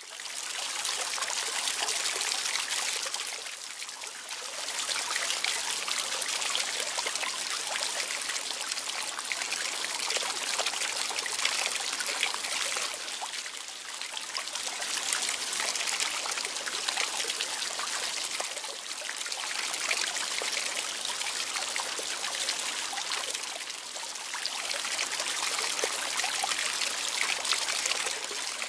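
Running water trickling and splashing steadily, easing slightly in level now and then.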